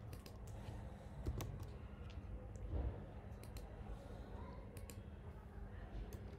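Computer keyboard keys clicking as a few words are typed and corrected, sharp irregular clicks with some in quick pairs, over a low steady hum.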